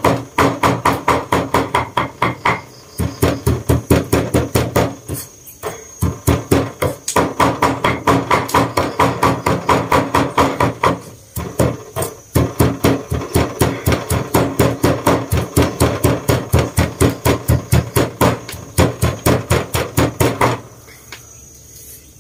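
Cleaver mincing lemongrass and chilies on a round wooden chopping board: rapid chops, about four or five a second, with a few short breaks, stopping near the end.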